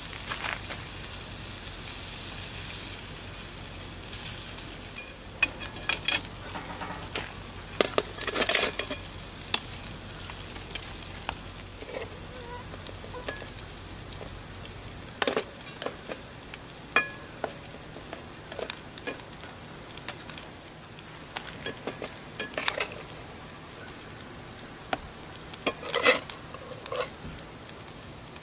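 Steak, then potatoes, peppers and onions sizzling in a frying pan over a folding firebox stove burning lump charcoal, with a metal spatula clinking and scraping against the pan many times. A steady high insect drone runs underneath.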